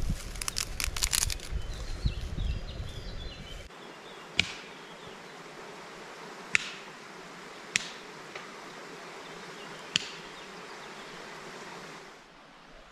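A small twig fire crackling, with rustling and knocks as it is tended. After a cut comes a steady forest background with a flying insect buzzing and four sharp ticks a couple of seconds apart.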